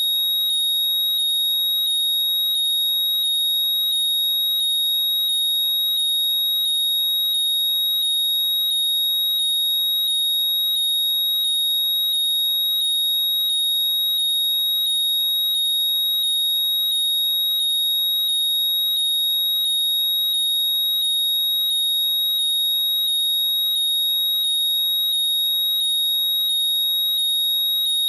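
Apple AirPods Find My locating sound: a loud, shrill high tone overlaid with short rising chirps that repeat rapidly and evenly without a break.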